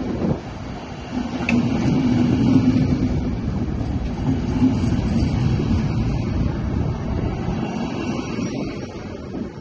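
Trenitalia regional passenger train of Media Distanza coaches rolling past at close range: a steady rumble of wheels on rail with a hum underneath. The sound drops off near the end as the last coach, a driving trailer, clears.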